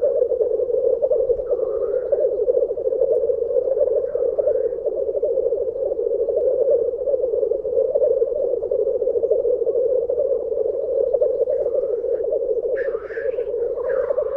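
Chorus of male black grouse at a lek, a continuous bubbling, cooing rookoo display song from several birds at once. A few higher, harsher calls rise above it near the end.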